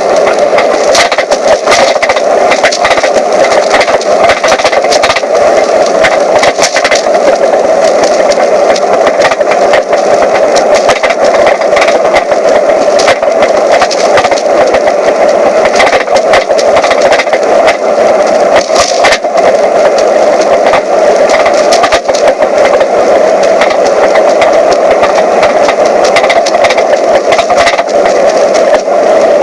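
Mazda 3 being driven, with a steady run of rapid, irregular knocking, rattling and clunking from the right rear wheel area over road noise. The knocking is the sign of a corroded, broken rear shock absorber mount.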